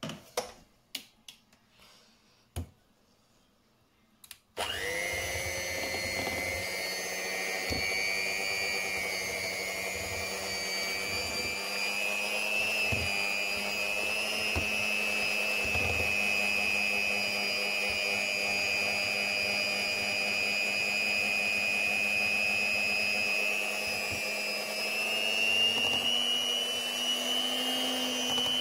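A few clicks, then about four seconds in an electric hand mixer starts with a quick rising whine and runs steadily, its twin beaters beating a thick rice-flour and jaggery batter. Its pitch rises slightly near the end.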